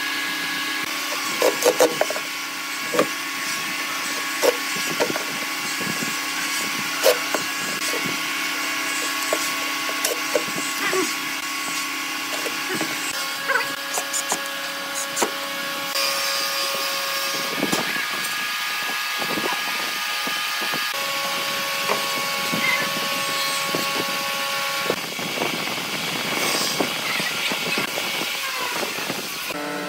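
Cordless drill driving small screws to fit hardware to a wooden cabinet, with scattered clicks and knocks of wood being handled, over a steady hum.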